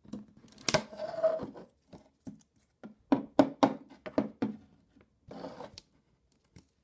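Hand handling a cardboard door and small toy figures on a wooden floor: a sharp click under a second in, then a quick run of light wooden taps about three seconds in, and a short soft rustle near the end.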